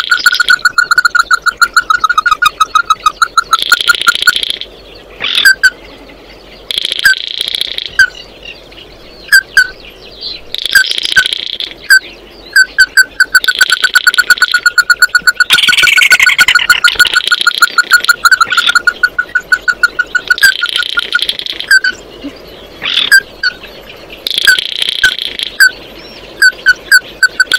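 Ruddy-breasted crake calling over and over: fast runs of short, clipped notes at one pitch, broken about every three seconds by a brief higher, harsher burst.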